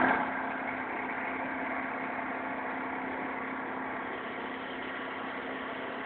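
Pressure-washing machine's engine running steadily, an even hum with a constant low tone.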